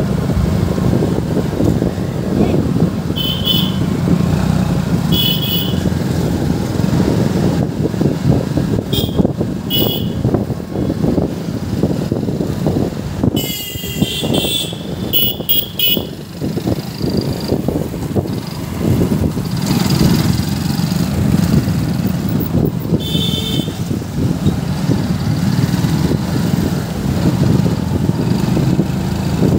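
Steady engine and wind rumble from a moving motorcycle in town traffic. Short vehicle-horn beeps come several times, with a quick run of them about halfway through.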